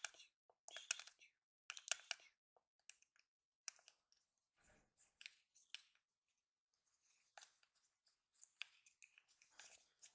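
Close-miked crisp clicks and crackles from a plastic chapstick tube being handled, in short clusters about once a second at first, then more scattered.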